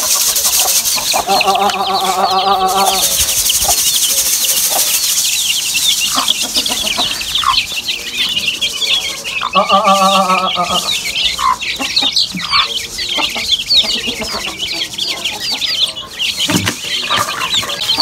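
A brood of chicks peeping constantly in rapid high chirps, with a hen giving two longer, lower calls, one about a second in and one near the middle.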